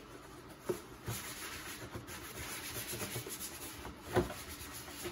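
A towel rubbing and wiping over the plastic engine cover and engine-bay trim, with two short knocks, the louder one about four seconds in.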